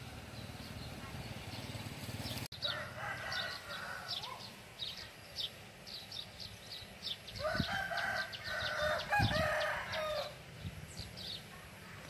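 A rooster crowing: a shorter crow about three seconds in and a longer one in the second half, over many small birds chirping. The first couple of seconds hold a low rumbling noise that stops abruptly.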